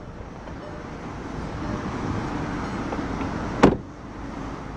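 A car door, that of a 2012 Volkswagen CC, is swung shut with a single loud thud about three and a half seconds in. Underneath is a steady low background of the car's 2.0-litre turbocharged four-cylinder idling.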